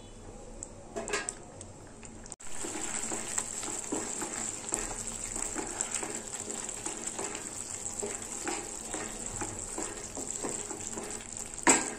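Wooden spatula stirring thick, bubbling lauki (bottle-gourd) halwa in a non-stick kadhai, with repeated short scraping strokes over a steady sizzle as the milk and gourd cook down on low flame. It gets louder about two seconds in, and a sharp knock comes near the end.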